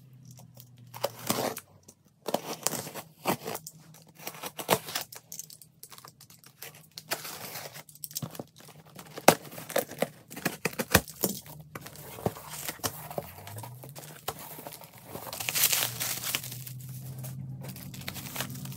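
Clear plastic wrap and packing tape being slit, torn and peeled off a cardboard parcel: irregular crinkling and rustling with scattered sharp cracks, and a longer stretch of tearing late on as the box is opened.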